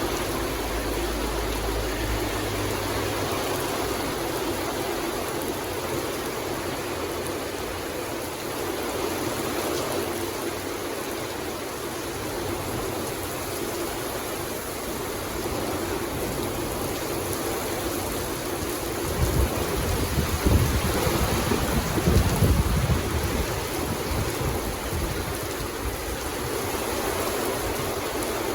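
Steady rain falling in a forest, an even hiss. About two-thirds of the way in, a low rumble of distant thunder swells for a few seconds and then fades back into the rain.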